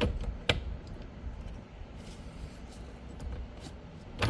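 Hand tools being handled: two sharp metallic clicks about half a second apart near the start and another near the end, over a low steady background rumble.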